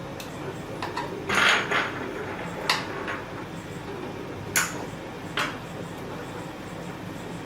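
Leather being hand-sewn with a saddle stitch: a short scrape as thread is drawn through the stitching holes about a second and a half in, and a few small sharp clicks from the needles being handled.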